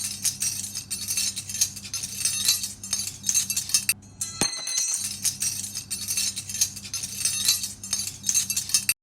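Many small hard objects clinking and jingling against each other in a quick, irregular run, over a low steady hum. It comes as two similar takes of about four seconds each, each opening with a sharp click, with a short break between them.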